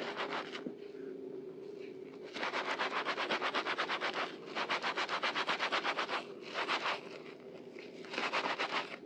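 Soap-soaked kitchen sponges squeezed rapidly in thick lather in a basin of soapy water: wet squelching, about eight squishes a second, in two runs of about two seconds each, then a few shorter bursts near the end.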